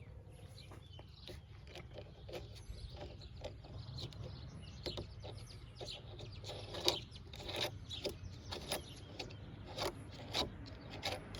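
Irregular small clicks and light taps of a tubular cam lock, its weather cover and washers being handled and fitted into an RV compartment door, getting busier in the second half with the loudest tap about seven seconds in. A steady low hum lies underneath.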